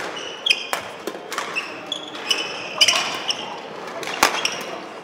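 Badminton doubles rally: rackets striking the shuttlecock with sharp hits about once a second, with short squeaks of court shoes on the hall floor between the hits.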